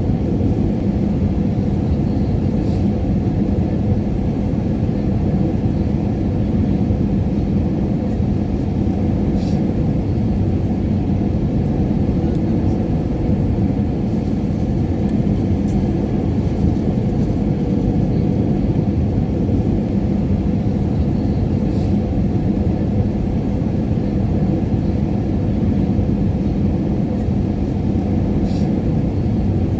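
Airliner cabin noise in flight: the steady low roar of the engines and airflow, with a faint steady hum, heard from inside the cabin. A few faint ticks sit under it.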